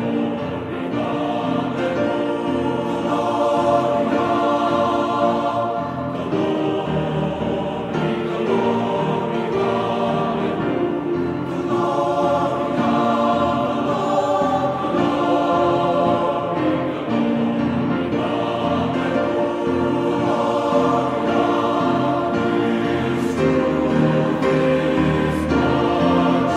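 Background music of a choir singing, with long held chords.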